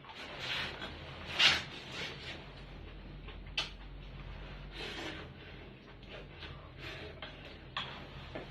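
Someone eating at close range: irregular chewing and mouth noises, with a few sharp clicks and light knocks of utensils against a dish.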